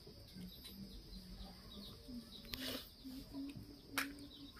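Chickens clucking low and quietly in short repeated notes, with two sharp clicks, one a little past the middle and one near the end.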